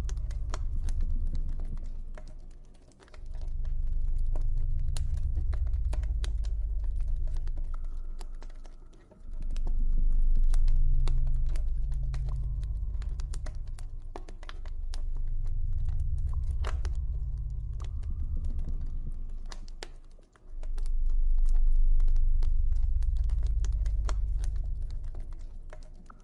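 Campfire crackling with many small sharp pops over a deep low ambient drone that swells and fades in slow waves every five or six seconds, with faint sustained high tones drifting above.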